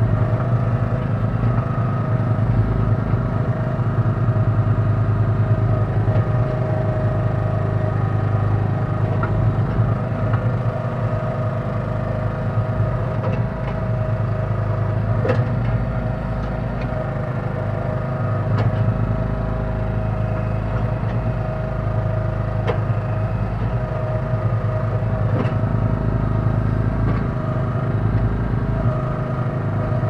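Small engine of a Kellfri mini backhoe running steadily, driving the hydraulics as the arm digs. A few sharp knocks in the second half.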